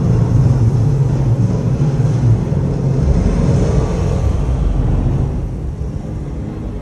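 Loud rushing and deep rumble of tall water-show fountain jets, fading in the last second or two as the jets die down.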